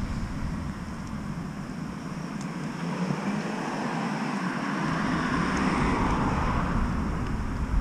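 Road traffic passing alongside: a car's tyre and engine noise swells and goes by about six seconds in. Wind rumbles on the microphone at the start and near the end.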